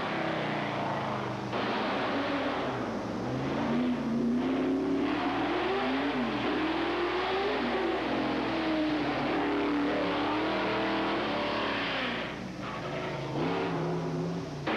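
Race car engines at full throttle climbing a hill course, the pitch rising and falling again and again as they accelerate, shift and brake for corners. The sound dips briefly near the end.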